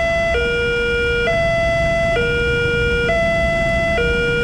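Railway level crossing's electronic warning alarm sounding a two-tone high-low signal, the tones switching about once a second, warning that a train is approaching. A steady low rumble runs underneath.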